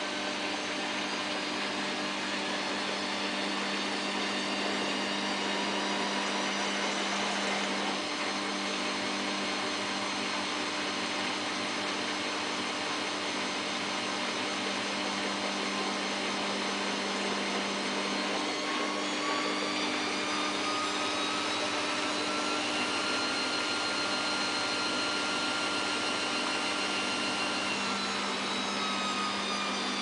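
Samsung WF8804RPA front-loading washing machine on its final spin: the drum spins at speed with a steady motor hum and whine. About two-thirds of the way through the whine rises in pitch, holds, and near the end falls again.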